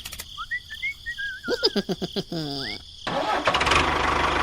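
A few short rising and falling chirps and sweeps, then about three seconds in a small engine starts and settles into steady running with a fast, even pulse.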